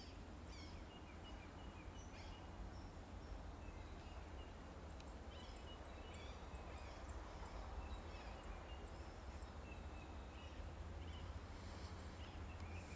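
Faint bird calls: scattered short high chirps, with a run of about ten quick high notes, roughly two a second, in the middle.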